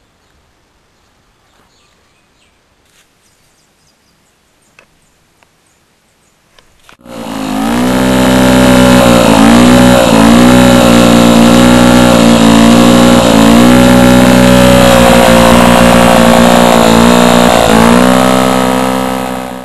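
Faint clicks, then about seven seconds in a petrol lawn mower engine starts and runs very loud, its pitch wavering up and down. It cuts off suddenly just before the end.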